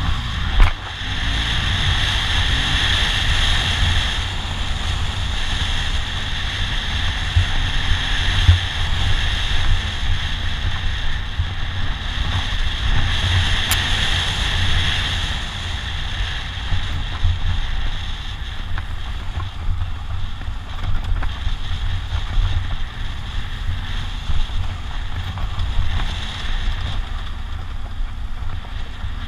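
BMW R1200GS Adventure's boxer-twin engine running as the bike rides along, under heavy wind buffeting on the camera microphone. A sharp knock about half a second in.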